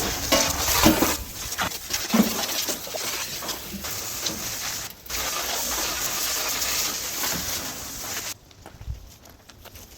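Water spraying hard from a hose, a loud, even hiss with scattered splashes and knocks, as the truck's cab is rinsed out. It cuts off suddenly about eight seconds in.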